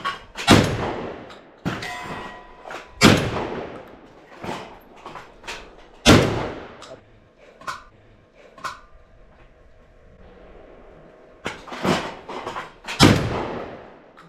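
Shotgun shots fired one after another at a moving target: four loud blasts with an echoing tail, spread over the stretch, with quieter bangs in between.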